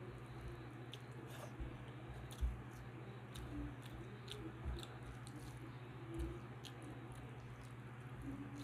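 Fingers squishing and mixing cooked rice with dal on a metal plate, with close-up chewing and wet mouth clicks. A few soft knocks come through, the loudest about two and a half seconds in, over a steady low hum.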